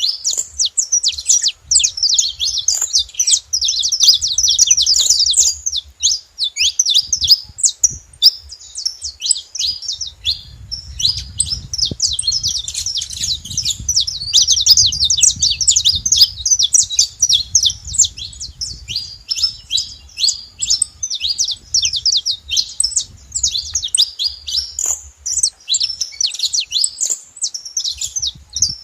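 A group of saffron finches chirping and calling together: a dense, continuous chatter of quick, high chirps from several birds at once.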